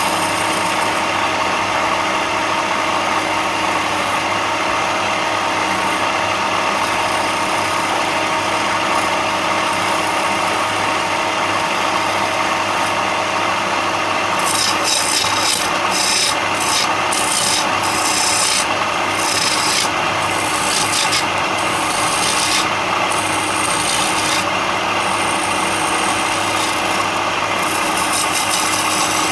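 Wood being rasped or abraded over a steady machine hum. From about halfway through, the scraping comes in repeated short strokes.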